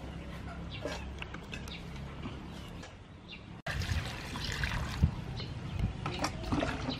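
Water poured from a jug into a steel bowl of basil and lemongrass, splashing over the herbs. It starts abruptly about halfway through, after a quieter stretch with birds chirping.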